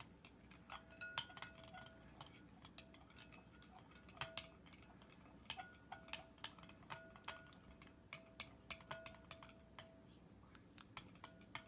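Spoon stirring slime mixture in a bowl, clinking irregularly against the sides many times, the bowl briefly ringing after the harder knocks.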